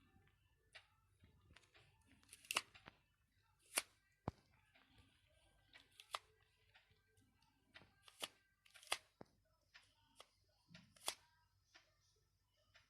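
A dozen or so sharp, irregularly spaced clicks over near silence: the keys of a Nokia 6500 Slide phone being pressed.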